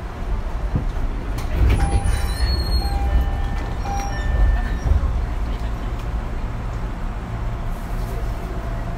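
Fujikyu 6000 series (ex-JR 205 series) electric train with a steady low rumble, heard on board. Several short high tones come and go about two to five seconds in.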